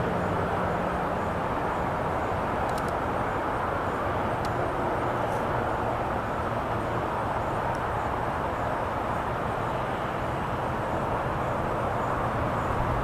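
Steady outdoor background noise like distant traffic, with a low engine-like hum near the start and again near the end and a few faint ticks.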